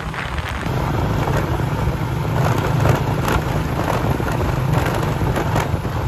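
Motorcycle engine running steadily while riding, with wind noise on the microphone; the low engine drone gets louder about a second in.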